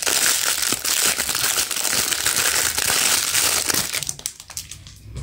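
Thin clear plastic bag crinkling as a squishy toy is pulled out of it and the bag is crumpled in the hand; it dies down about four seconds in.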